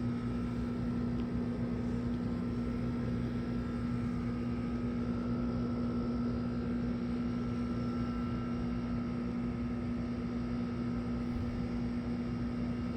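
Steady mechanical hum of a small motor or electrical appliance, with a constant low drone and a fainter high tone.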